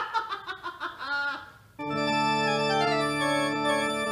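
A short laugh in the first second and a half, then about two seconds in a sustained organ chord sounds and is held, a few of its inner notes shifting: a dramatic music sting.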